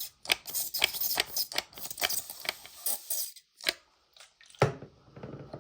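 Shaving brush whisking shave soap into a lather in a ridged 3D-printed bowl: quick swishing strokes, about four or five a second, that stop about three seconds in. A few sharp knocks follow, the loudest near the end, then a short hiss.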